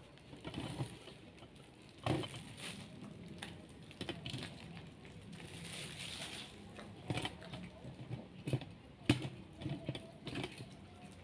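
Cats eating fish scraps: irregular crunching and rustling, with a couple of sharper knocks about two seconds in and again near the end.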